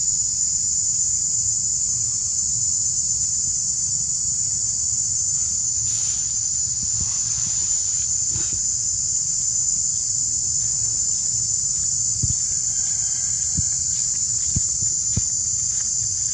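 Steady, high-pitched drone of insects calling, with a low rumble underneath and a few faint ticks.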